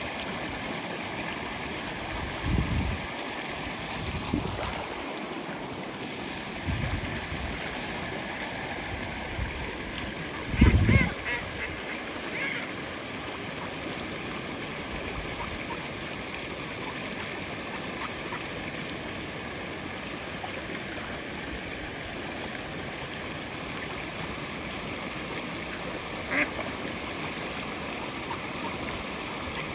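Mallards quacking briefly a few times, about eleven to twelve seconds in and once near the end, over the steady rush of fast-flowing, foaming water. A few short low thuds come in between, the loudest just before the quacks.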